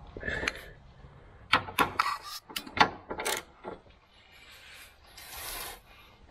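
Socket wrench ratcheting on a rear subframe (cradle) bolt being tightened: a quick, irregular run of sharp metallic clicks about a second and a half in, with quieter handling noise around it.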